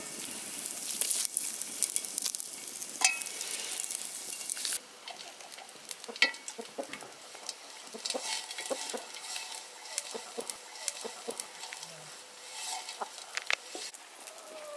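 Caul fat sizzling as it renders in a cast-iron pan, with a knife working it in the pan. About five seconds in, the sizzle drops to a quieter hiss with scattered sharp pops.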